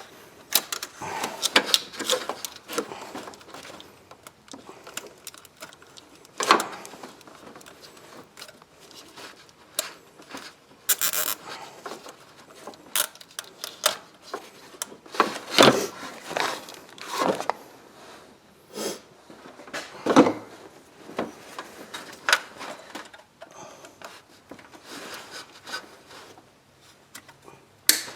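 Scattered plastic clicks, taps and rubbing of hands working in a car's engine bay, feeding a cable tie around an ignition coil connector whose locking tab is broken, with a few sharper knocks.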